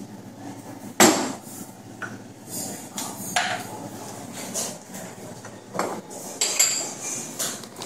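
Sharp knocks and clinks of espresso-bar work: steel milk jugs and glasses set down and handled on a steel bench at an espresso machine, the loudest knock about a second in and several more spread through.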